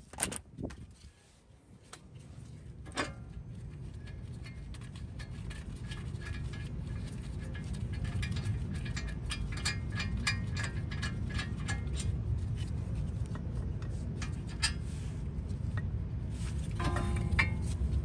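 Metal clicks and clinks from a wrench working on a 19 mm caliper bracket bolt, over a low rumble that grows louder over the first several seconds.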